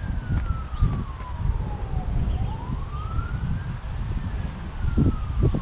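Emergency vehicle siren wailing in a slow rise and fall, one sweep every four to five seconds, over a low rumble. A couple of short knocks come near the end.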